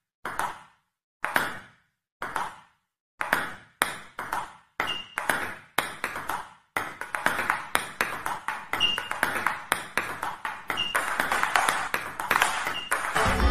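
Table tennis balls clicking off paddles and tables. At first single hits come with silence between, then they get quicker, and from about seven seconds in many hits overlap in a dense clatter, as from several rallies going on at once.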